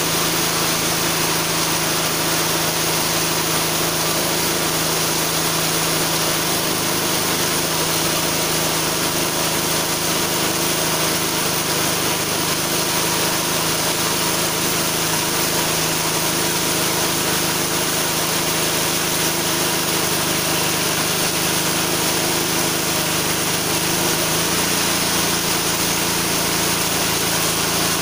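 Small 6.5 hp engine driving a homemade chainsaw mill, running steadily at an unchanging pitch.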